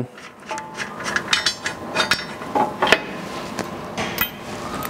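Irregular metallic clicks and clinks as steel bolts are put in by hand through trash knives on a corn head row unit, metal tapping on metal.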